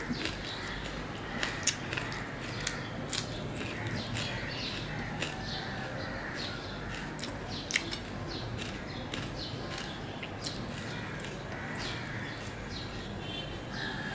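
Close-up eating sounds of a person eating mutton biryani by hand: chewing and wet lip smacks, with fingers mixing rice on the plate. Irregular sharp smacks, a few noticeably louder than the rest.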